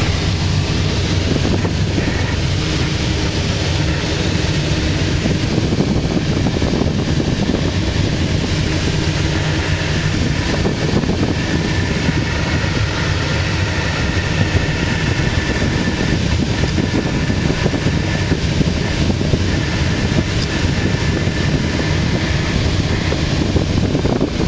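Steady rush of air over the canopy of a Schleicher ASK 21 glider in flight, heard from inside the cockpit with wind buffeting the microphone.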